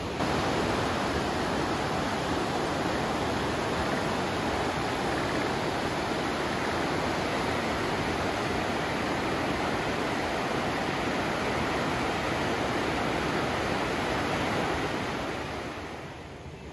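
The Hida River running in spate through a rocky gorge: a loud, steady rush of whitewater that eases off near the end.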